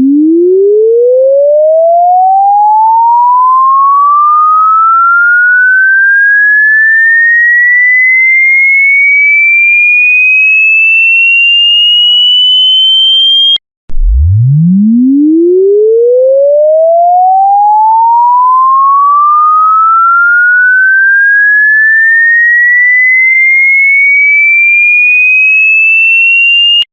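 Electronic sine-wave sweep tone: a single pure pitch gliding steadily upward from a low hum to a high whistle over about 13 seconds. It cuts off briefly about halfway through, then starts again from the bottom and rises the same way.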